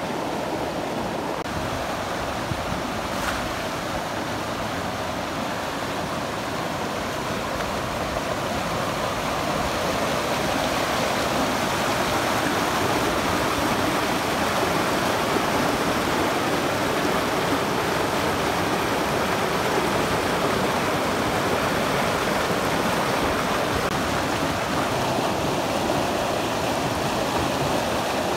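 Mountain stream rushing over stones, a steady wash of water noise that grows slightly louder about ten seconds in.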